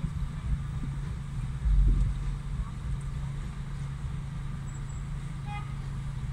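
Steady low rumble of a car's engine and the surrounding traffic, heard from inside the car's cabin, with a louder low surge about two seconds in. Near the end there is a brief high pitched sound.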